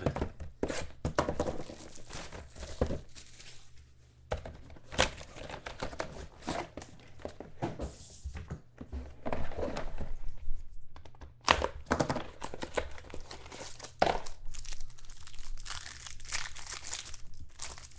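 Football trading-card packaging being torn open by hand: wrapper crinkling and tearing, with irregular clicks and thunks as the box and cards are handled.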